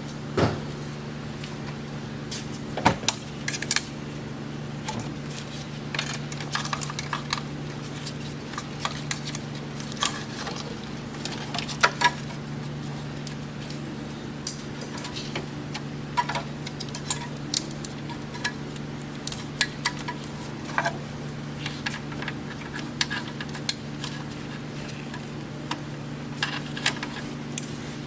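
Metal tools and parts clinking and tapping at irregular intervals, over a steady low hum.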